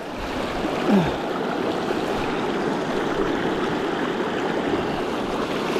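Shallow, fast river running over stones close to the microphone, a steady rushing of water, as a water bladder is held open under the surface to fill. A brief low falling sound about a second in.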